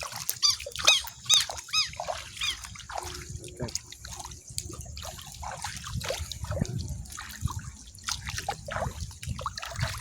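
About six short, arched chirping calls from an animal in the first few seconds, over continual splashing and trickling of shallow water being waded through.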